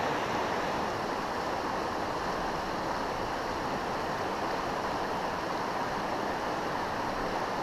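Creek water rushing steadily over a rocky riffle.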